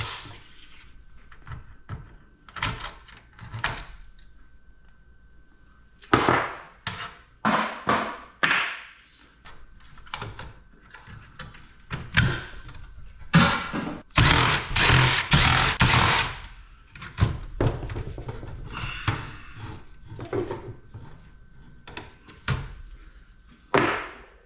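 Clunks, knocks and rattles of metal computer parts being handled and pulled apart by hand, with a busier stretch of rattling about halfway through.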